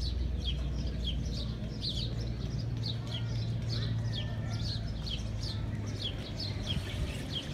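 Many small birds chirping continuously, short quick downward-sliding chirps several times a second, over a low steady rumble.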